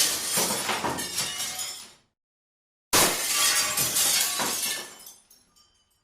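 Glass shattering, a breaking sound effect: a crash already under way fades out, then about three seconds in a second crash follows, its pieces tinkling as it dies away.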